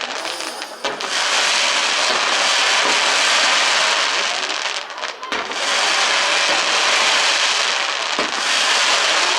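Fireworks crackling densely in a continuous hissing crackle, with a few sharp bangs at brief lulls just before one second in and again about five seconds in.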